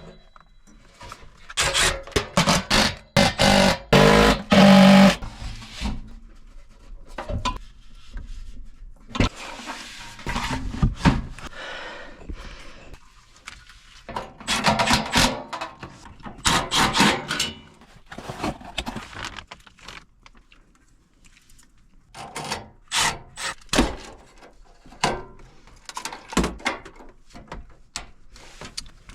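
Irregular knocks, clicks and scrapes of tools and parts being handled, with short quiet gaps between them.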